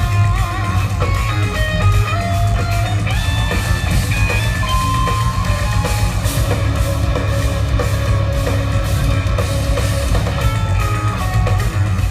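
Instrumental progressive metal played live by a band: eight-string electric guitars play melodic note runs over heavy low riffs, with a drum kit. The music is loud and steady, with no vocals.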